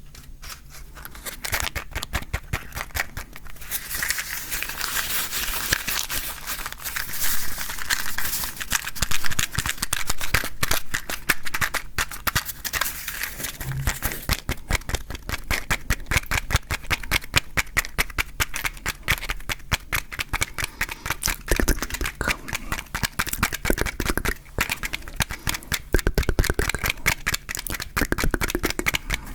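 Wooden matches and a matchbox handled close to the microphone: a dense, continuous run of small clicks and crackles.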